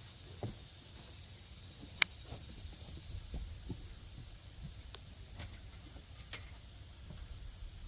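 Scattered light metallic clicks and taps of hand tools and parts being handled, with one sharp click about two seconds in.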